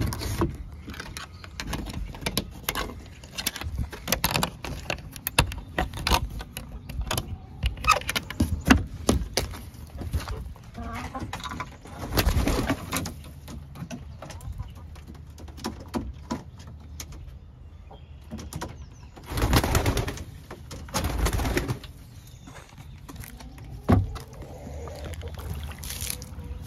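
Birds calling, among repeated knocks and clicks from hands working wooden and metal coop fittings. There are longer bursts of rustling noise about twelve and twenty seconds in, and a sharp knock near the end.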